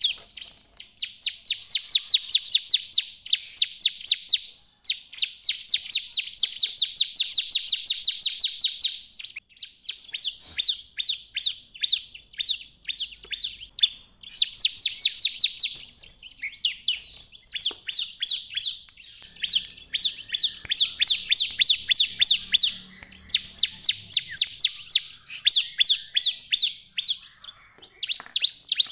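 A bar-winged prinia (ciblek) in full song: long runs of rapid, high, sharp repeated notes, about nine a second, each run lasting several seconds with short pauses between.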